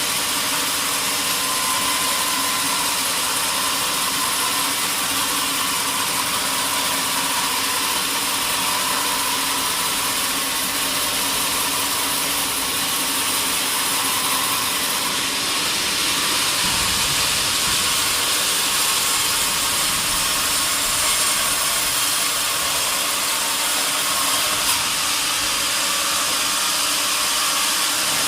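Sawmill saw running steadily while working a log: an even, loud hiss with a faint hum underneath, and a brief low rumble about midway.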